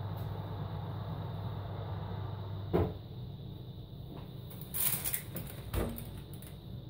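A metal baking tray of simit taken off the gas hob's cast-iron grates: a scrape about five seconds in and a knock just before it comes away. Before that a steady low hum stops with a click about three seconds in.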